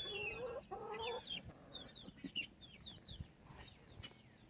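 Chickens clucking, with a drawn-out rising call in the first second, mixed with many short, high chirps that thin out after about three seconds.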